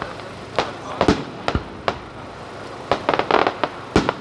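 Aerial fireworks bursting in a series of sharp bangs, with a quick crackling cluster of reports about three seconds in. The loudest bangs come about a second in and near the end.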